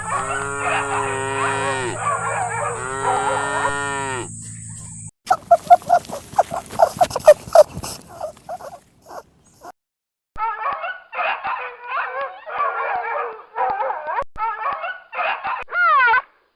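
Farm animal calls, edited one after another: first two long drawn-out calls, then a run of quick, loud calls, then after a short pause a series of short calls.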